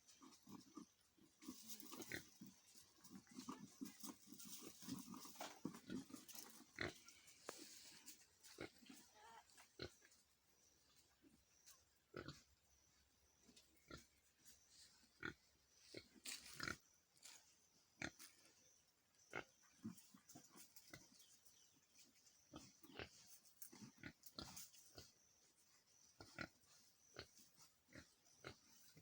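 Pigs grunting faintly, densest in the first several seconds, with many short clicks and knocks scattered throughout.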